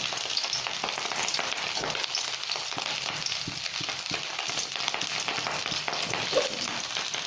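Eggplant slices shallow-frying in hot oil: a steady sizzle with fine crackling.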